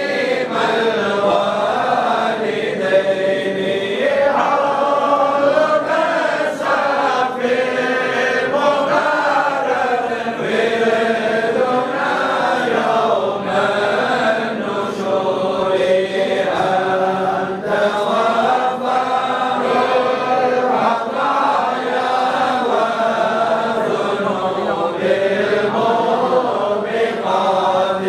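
Men's voices chanting together in unison, an Islamic devotional recitation sung through handheld microphones, with long held notes that rise and fall without pause.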